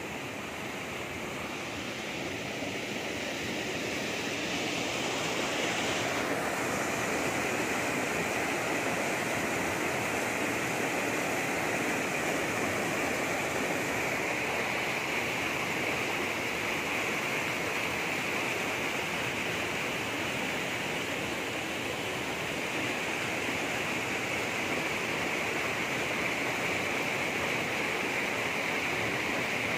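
Small waterfall pouring between boulders into a rock pool: a steady rush of churning water, growing louder over the first few seconds.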